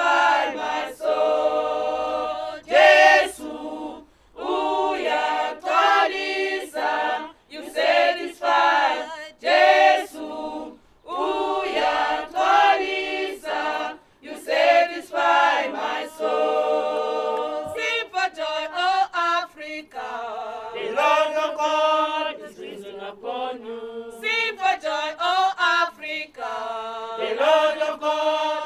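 A group of voices singing together as a choir, in sung phrases with short breaks between them.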